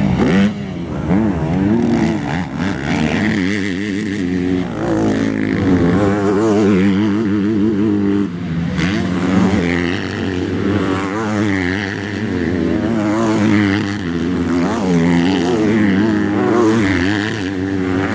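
Several motocross bikes' engines revving hard under load as they climb a steep dirt hill, their pitches rising, falling and overlapping.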